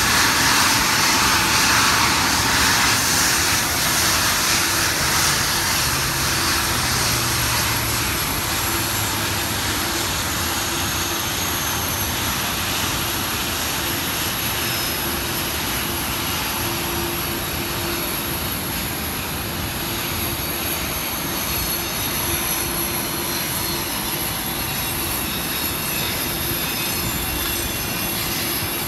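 Jet aircraft engines running on an airport ramp: a steady rushing noise with a thin high whine above it, easing slightly over the first several seconds and then holding level.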